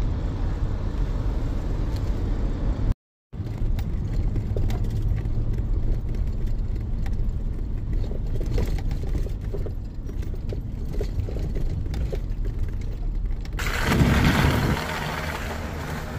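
Jeep Wrangler driving on a slushy, muddy road: a steady low rumble of engine and tyres. The sound drops out completely for a moment about three seconds in, and a louder rush of noise comes about fourteen seconds in.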